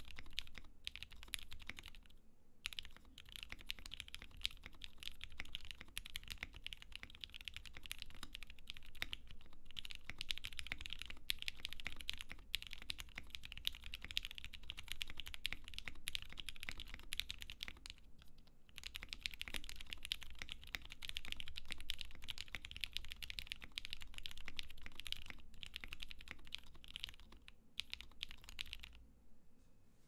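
Steady typing on a Mint Portico gasket-mounted custom mechanical keyboard with lubed and filmed Tealios v2 linear switches and an FR4 plate. The keystrokes form a dense, even clatter with a few brief pauses and stop just before the end.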